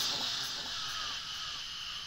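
Fading tail of a loud, raspy hissing sound effect that dies away steadily.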